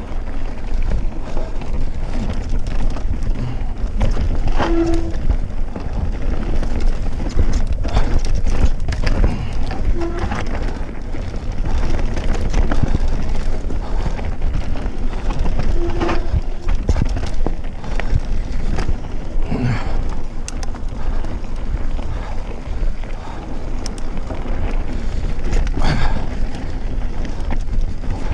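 Cube Stereo full-suspension mountain bike riding fast down a dirt singletrack: heavy wind buffeting on the microphone over the tyres' rumble, with frequent clatters and knocks as the bike runs over roots and bumps, and a few brief squeaks.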